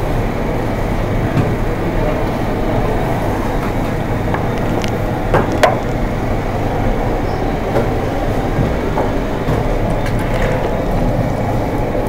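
Steady, loud workshop rumble, like a running machine, filling the background, with two sharp wooden knocks a little before halfway as the wooden sugar-doll moulds are handled.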